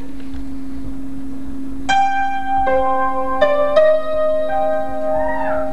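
Steady low hum, then about two seconds in an electric keyboard begins playing slow, sustained single notes one after another, as the introduction to a song. A short sliding tone comes in near the end.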